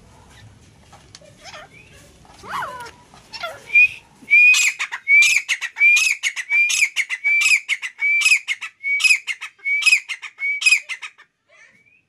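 Grey francolin calling: a loud, regular series of short repeated notes, about two a second, that starts about four seconds in and stops about a second before the end. A few fainter single calls come before the series.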